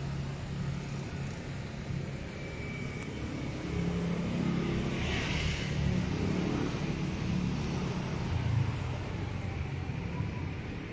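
Street traffic: a motor vehicle's engine rumbles, growing louder from about four seconds in and fading again near the end, as it passes.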